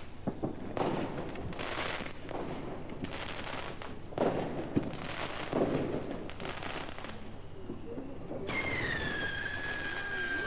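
Fireworks going off: a run of crackling, hissing bursts and sharp pops, then about eight seconds in a sudden shrill whistle that falls slightly in pitch, like a whistling firework.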